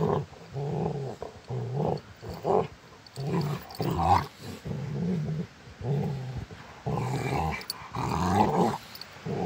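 Two Rottweilers play-fighting, growling in a run of short low growls one after another with brief gaps between them. It is play growling, not a real fight.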